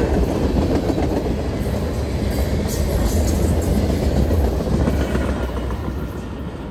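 Freight cars rolling past close by: a steady rumble of steel wheels on the rails with light clicking, getting quieter near the end as the last cars go by.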